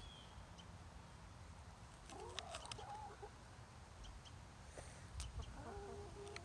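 Brown hens clucking quietly: a short run of low clucks about two seconds in and another near the end, with a few sharp ticks between them.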